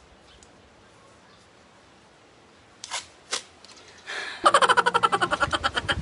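Masking tape being pulled off its roll: a loud, rapid ripping rasp of about a second and a half, starting about four and a half seconds in, after two short clicks.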